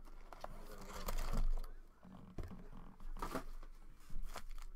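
Foil trading-card packs crinkling and being handled out of a cardboard hobby box, with a few light knocks as packs and box are set down on the table.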